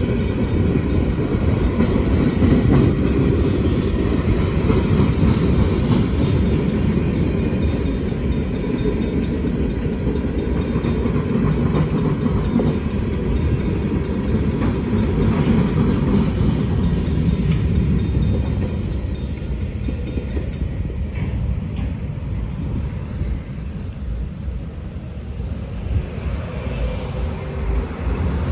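Freight train of tank cars and open hopper cars rolling through a grade crossing: a steady rumble and clatter of steel wheels on rail. The rumble eases off about two-thirds of the way through as the last cars pass, leaving road traffic crossing the tracks.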